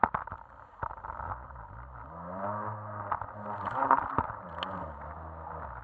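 Jet ski engine running, its pitch rising and falling as the throttle is worked, over water rushing and splashing against the hull and the camera. A sharp splash hits right at the start.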